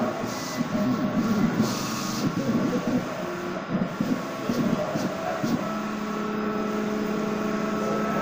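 Sign-shop machines running: a large-format printer and a vinyl cutter plotter at work, giving an uneven mechanical clatter. About halfway through, a steady motor hum sets in.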